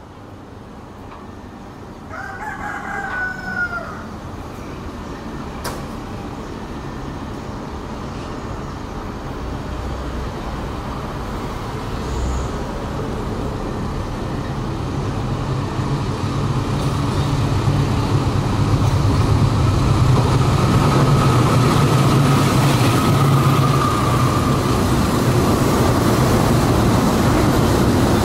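Diesel locomotive hauling a container freight train approaches, its engine drone growing steadily louder until it is close by. A rooster crows once about two to four seconds in.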